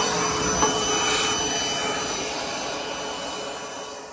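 Milwaukee M18 cordless vacuum running, a steady high motor whine over a rush of air as it cleans the furnace, slowly getting quieter toward the end.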